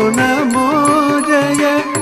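Carnatic music accompanying a Bharatanatyam dance: a melody line that slides and wavers in pitch over a steady drone, with regular percussion strokes.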